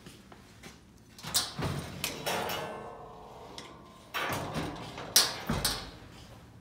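The oven door of an electric range is pulled open with a clatter and brief metallic ringing, then swung shut, ending in a heavy thump.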